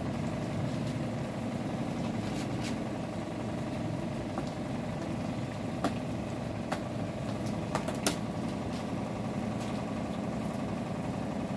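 A steady low machine hum, with scattered sharp clicks, the loudest about eight seconds in.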